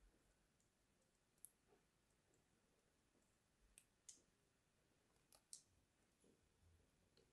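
A knife blade slicing through a block of kinetic sand held in the palm: a handful of faint, crisp clicks over a near-silent background, some coming in quick pairs.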